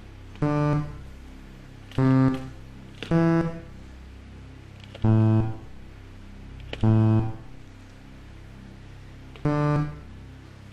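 Game-show button tones: six separate electronic notes of different pitch, each about half a second long, sounding one at a time at irregular gaps as contestants press buttons to repeat a nine-note sequence. A low steady hum lies beneath them.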